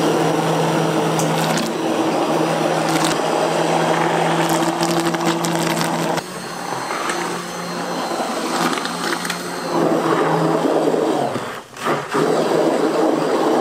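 An electric motor running with a steady hum, with scattered clicks and knocks over it. It drops out briefly near the end, then runs on.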